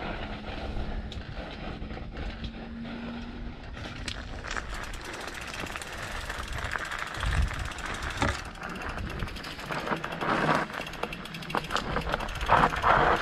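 Mountain bike on a rough dirt trail: tyres crunching over grit and stones with quick rattles and knocks from the bike. It gets busier about four seconds in and loudest near the end.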